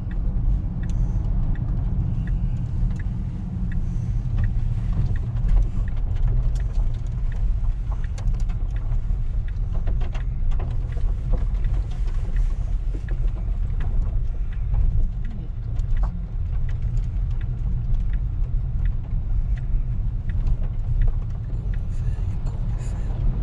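Tesla Model S Plaid driving on the road: a steady low tyre and road rumble with no engine note, as the car is electric. Scattered faint ticks run through it.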